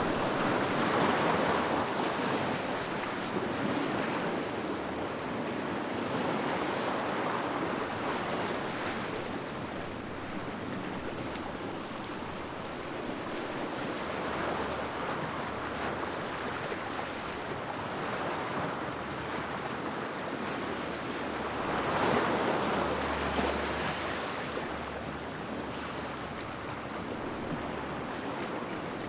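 Sea waves washing onto a shore, a continuous surf noise that swells and recedes every few seconds, with the biggest wave about three-quarters of the way through.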